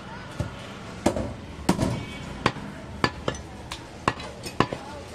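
Heavy butcher's cleaver chopping goat meat on a wooden log chopping block: about ten sharp chops at an uneven pace.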